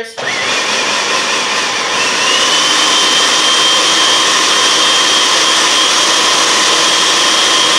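Electric food processor pureeing a wet mix of herbs, celery and onion with oil. Its motor runs loud and steady, with a high whine that rises a little in pitch about two seconds in.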